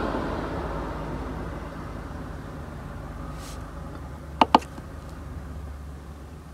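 Diesel air heater starting up, a steady low hum from its running fan and pump. Two quick clicks about four and a half seconds in come from buttons pressed on the charge-controller display.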